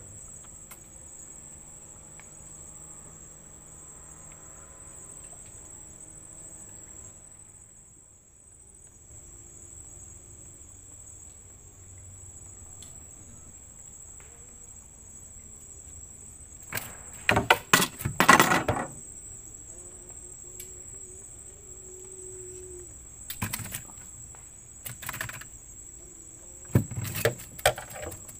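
Insects chirring in a steady high-pitched drone, with a cluster of loud bursts of noise about two-thirds of the way through and a few shorter ones near the end.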